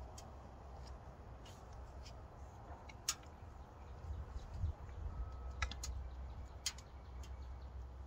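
Wood fire crackling in the firebox of a Pomoly Dweller Max 2.0 tent stove: scattered sharp pops, the loudest about three seconds in and again near seven seconds, over a low steady rumble.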